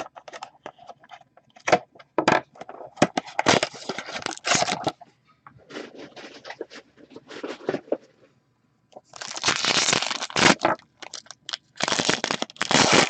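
Crackling and clicking as the seal on a cardboard trading-card box is slit and the box is opened, then the card pack's wrapper crinkling and tearing open, with two longer, louder tearing stretches in the second half.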